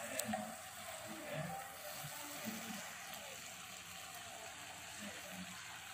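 A spoon stirring capsicum and potato sabzi in a steel pot on a gas burner, with a faint, steady simmering sizzle.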